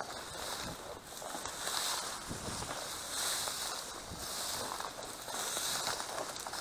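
Dry grass and brush rustling and crackling as a person pushes through it on foot, with wind on the microphone. The hiss swells and fades with each step.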